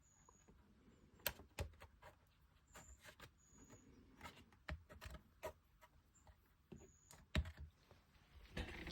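Scattered light clicks and taps from small model parts and hand tools being handled on a workbench, with a sharper tap about a second in and another near the end.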